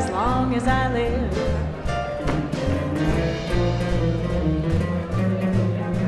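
Live small-group swing jazz: a double bass walks under guitar chords and drums, with a melody on top.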